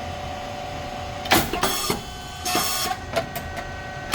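Puffed rice cake machine running through its cycle: a steady hum from its motor and pump, broken about a second in by a sharp pop with a short rush of hiss, a second hiss burst a second later, a few clicks, and a loud knock near the end.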